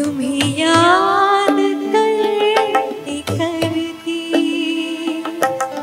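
A woman singing a slow Hindi film song live, holding long gliding notes over the first half, accompanied by tabla strokes and a steady sustained instrumental note underneath.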